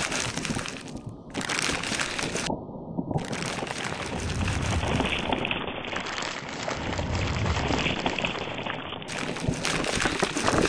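Dense crackling, hissing noise full of small clicks, its tone changing abruptly several times.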